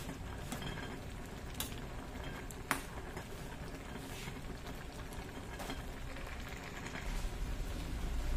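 Pork rib stew bubbling in a large metal pot as a steady hiss, with a metal ladle stirring and knocking against the pot in a few sharp clicks. A low rumble comes in near the end.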